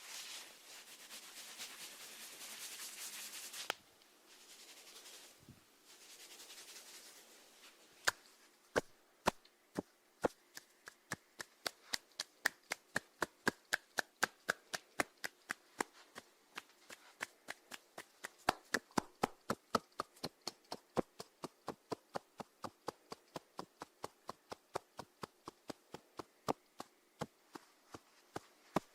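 A snail feeding, its radula rasping at food in a run of sharp, crisp clicks, about three a second. The clicks follow a few seconds of soft rustling hiss near the start.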